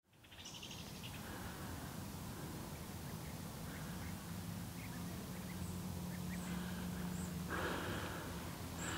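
Quiet outdoor ambience: scattered faint bird chirps over a low steady hum, with a short rustle near the end.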